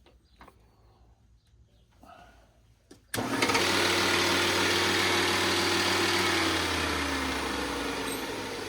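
Electric valve grinding machine switched on about three seconds in, running with a steady motor hum over a dense grinding hiss as it makes a pass on a pitted valve. Near the end the hum drops in pitch and the sound eases off.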